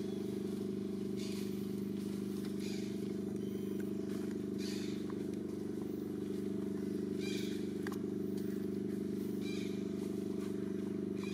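A steady low motor hum at an even level, with short faint high chirps every second or two.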